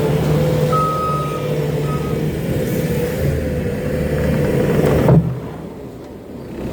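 Bobcat T770 skid steer's diesel engine running steadily, with two high beeps, a longer one about a second in and a short one about two seconds in. The engine sound drops away suddenly about five seconds in.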